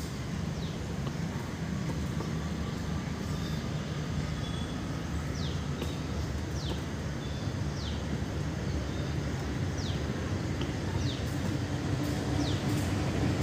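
Steady low outdoor rumble, with a bird repeatedly giving short, high calls that fall in pitch, several times at irregular intervals.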